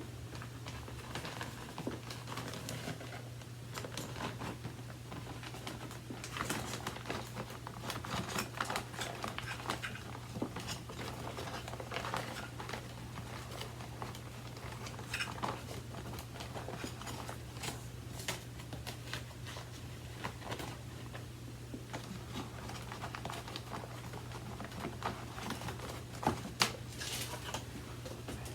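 Hands handling a paper vacuum bag and the plastic bag compartment of an upright vacuum cleaner: scattered small clicks, taps and crinkling over a steady low hum. The vacuum is not running.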